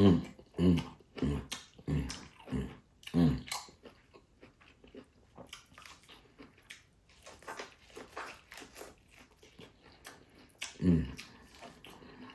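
A person eating crab and corn on the cob: chewing with small crunching and crackling clicks. About six short, low, falling vocal sounds come in a quick run over the first three and a half seconds, and one more near the end.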